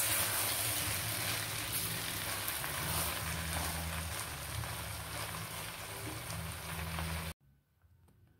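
Chow mein noodles, chicken and vegetables sizzling in a hot wok as they are stir-fried with a spatula, over a low steady hum. The sizzling cuts off suddenly near the end.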